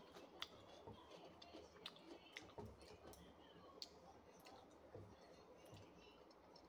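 Faint eating sounds from a person eating by hand from a plate: a few scattered small clicks of chewing and mouth noises, at a very low level.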